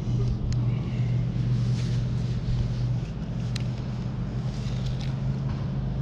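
A steady low mechanical hum at a fixed pitch, running on over an even hiss, with a few faint clicks.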